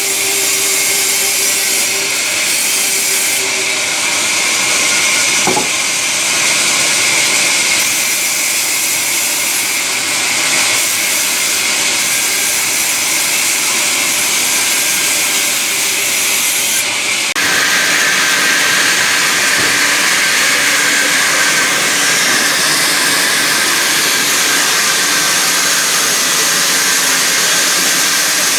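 Sawmill saw cutting timber: a loud, steady, hissing machine noise, with a brief click about five seconds in and an abrupt change in the noise's pitch about seventeen seconds in.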